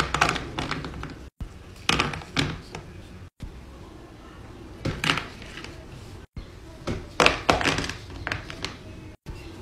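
Gloved hands placing sour candy belts and gummy candies into a clear plastic divided platter. Short clusters of crinkling, rustling and taps on the plastic come every second or two, broken by a few instants of dead silence.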